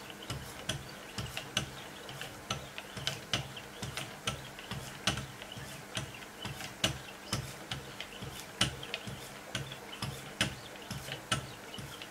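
A Wicked Edge guided sharpener's pair of 0.125-micron finishing paddles stroked alternately along both sides of a clamped Benchmade Nakamura 484 blade in M390 steel, making a steady rhythm of light clicks with soft taps, about two or three strokes a second.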